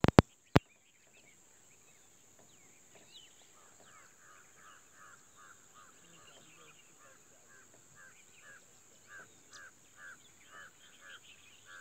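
Birds calling in open grassland: one bird repeats a short call about twice a second from a few seconds in, over scattered higher chirps and a steady high hiss. A few sharp clicks come in the first half second.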